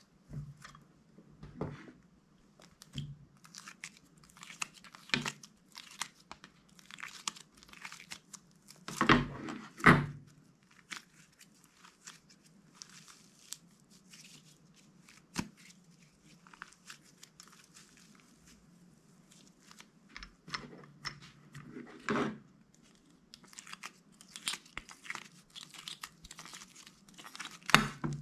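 Clear slime being squished and stretched by hand, making irregular crackling and popping, with two louder pops about nine and ten seconds in.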